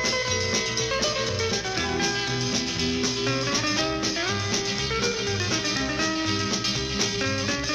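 Instrumental music led by a plucked guitar, with a steady, regular bass line beneath.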